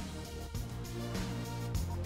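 Intro music with a steady beat over held low bass notes.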